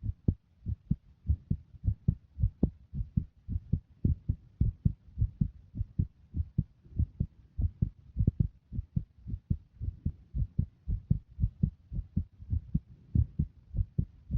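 Heartbeat heard close up: a steady rhythm of paired low thumps, the lub-dub of the heart.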